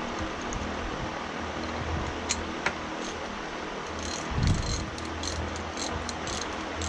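Vintage RWYa ratchet being worked to break it in, its pawl clicking over the gear teeth after lubrication: two sharp clicks, a low thump, then a run of faint quick clicks in the second half. A steady hum runs underneath.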